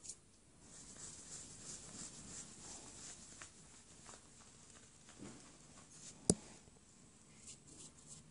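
Faint scratching and scuffling as a kitten paws and grips a thin stick toy on a wooden floor, with one sharp click a little past six seconds.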